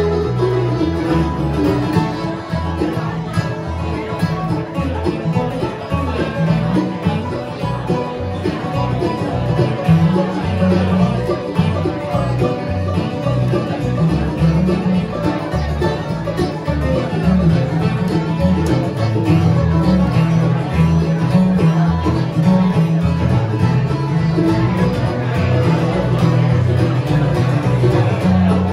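Bluegrass band playing an instrumental tune live: acoustic guitar, mandolin, banjo, upright bass and piano accordion together, steady and unbroken.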